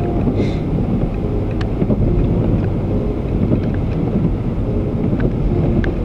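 Interior road and engine noise of a Honda Civic driving in the rain: a steady low rumble with wind buffeting the microphone.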